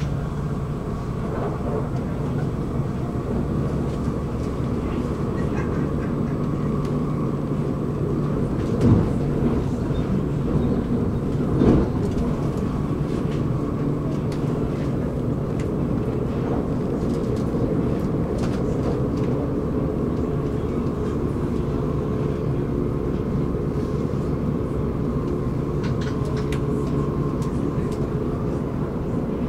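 Stockholm commuter train running along the track, heard on board: a steady rumble with a constant hum, and two louder knocks about nine and twelve seconds in.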